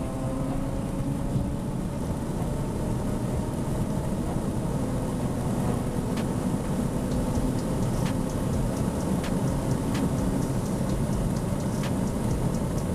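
Car driving at a steady speed: a steady engine drone under heavy wind and road rumble, with a few sharp ticks in the second half.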